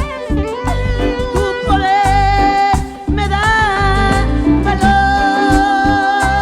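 Gospel-style song: a woman singing long held notes with vibrato over a band with bass and a steady beat, with a short break about three seconds in.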